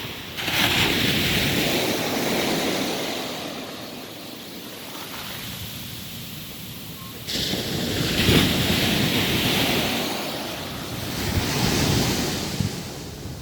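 Ocean surf breaking on a beach, swelling and fading in about three waves, with wind buffeting the microphone.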